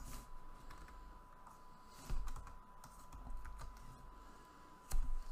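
Computer keyboard being typed on: irregular, scattered keystrokes, with a louder stroke about two seconds in and another near the end.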